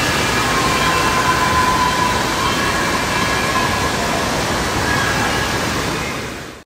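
Loud, steady rush of falling and churning water in an indoor waterpark, from the slides and the splash pool at their run-out.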